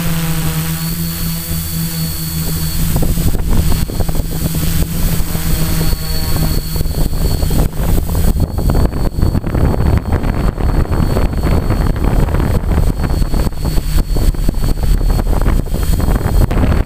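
Quadcopter's electric motors and propellers humming steadily in flight, heard from its onboard camera, with a thin high whine over the hum. A rough rushing noise grows heavier from about halfway through, wind buffeting the microphone.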